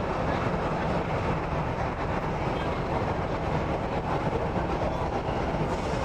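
Korean-built MTR East Rail Line electric train heard from inside the carriage while running through the tunnel toward Admiralty: a steady rumble and rush of wheels on rail.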